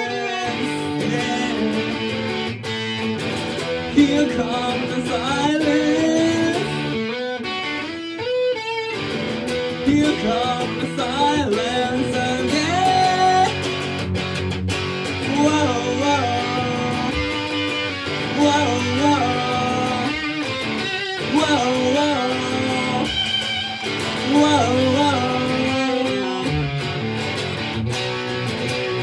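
Pink Telecaster-style electric guitar playing an instrumental passage of a song, a sliding, bending melodic line over sustained chords.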